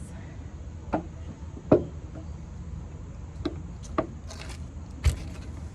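Scattered knocks and clicks of wooden furniture parts and screws being handled while fitting a shelf, about five in all, the loudest a little under two seconds in.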